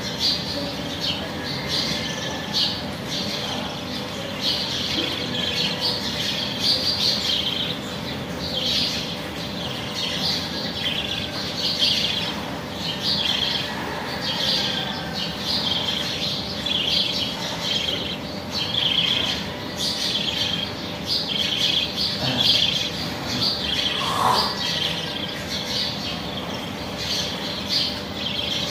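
Birds chirping and calling repeatedly in the background: short, high calls several times a second, steady throughout.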